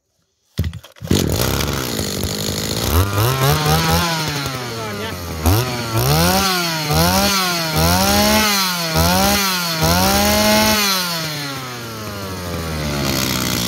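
Robin 22cc two-stroke brush cutter engine starting about half a second in, idling briefly, then being revved and released about seven times in a row before settling back to a steady idle, a test run of a used machine.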